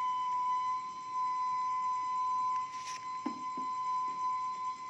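Kue putu vendor's steamer letting off a continuous high-pitched steam whistle, one steady tone, with a few small knocks a little past the middle as the bamboo tubes are handled.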